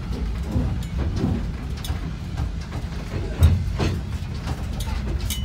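John Deere front loader's engine running with a steady low rumble as it moves the boat, with scattered knocks and a heavier thud about three and a half seconds in.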